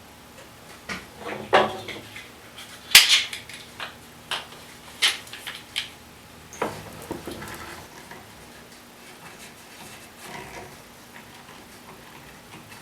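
Wooden pieces and tools being handled and set down during a glue-up on a table saw top: scattered knocks and clicks, the loudest about three seconds in.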